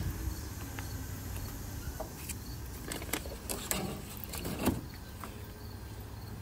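Steady low outdoor rumble, with a cluster of knocks and plastic rattles about three to five seconds in as a plastic Sluggo jug is taken down from a shelf.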